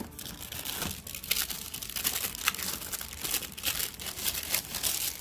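Clear plastic packaging bag crinkling as it is pulled from a cardboard box and handled: a dense, irregular run of crackles.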